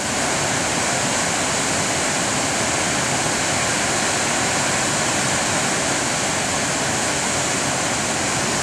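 High Force waterfall on the River Tees pouring into its plunge pool: a steady, even rush of falling water.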